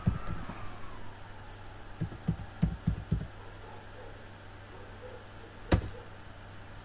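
Computer keyboard keystrokes heard as dull low thumps: a quick run of five keys in about a second, then one sharper click near the end as the login is submitted.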